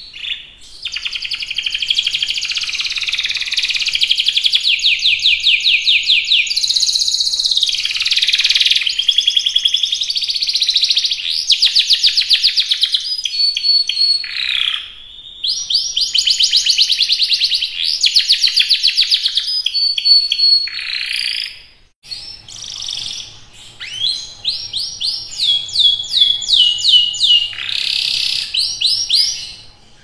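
Domestic canary singing a long, nearly unbroken song of rapid trills and rolling, warbling phrases, high-pitched. The song stops briefly about two-thirds of the way through, then starts again with fast repeated trills.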